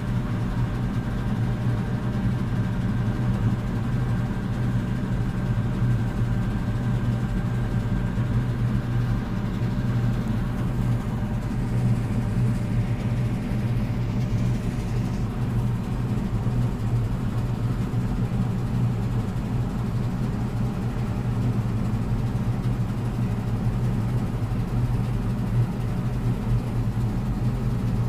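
Combine harvester running steadily while cutting a grain crop: a constant low engine and machinery drone with a few faint steady hums above it.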